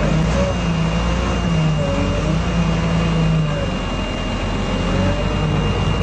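Heavy equipment engine running, its pitch wavering slowly up and down, with a constant high whine over it.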